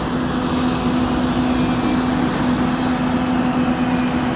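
Heavy vehicle engine running steadily: a constant low hum over road rumble.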